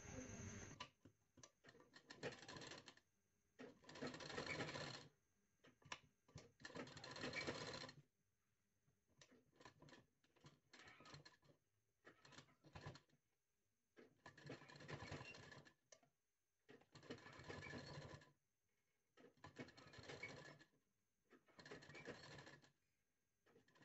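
Black domestic straight-stitch sewing machine stitching gold lace trim onto a blouse neckline. It runs in about six short runs of a second or so each, with pauses and a few small clicks between them as the fabric is turned.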